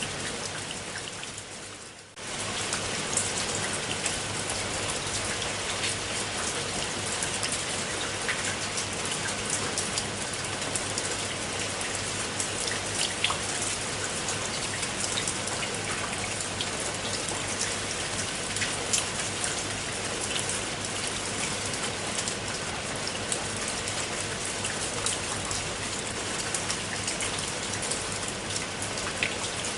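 Steady rain falling on a pool of water: a dense hiss dotted with many single drop splashes. About two seconds in it fades down briefly, then cuts back in sharply.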